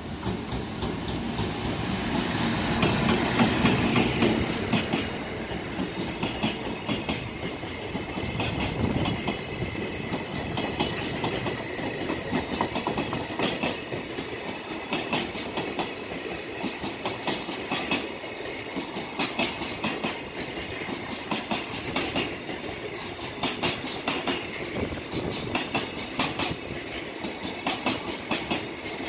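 EF210-300 electric freight locomotive passing, loudest about four seconds in, followed by a long train of Koki container flatcars rolling by, their wheels clicking over the rail joints in a steady, repeating rhythm.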